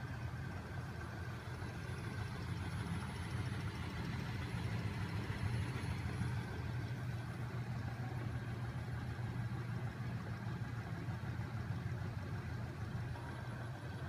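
Battery-powered electric motor driving a magnet crankshaft machine with a heavy flywheel, running steadily: a low even drone with a faint steady whine above it.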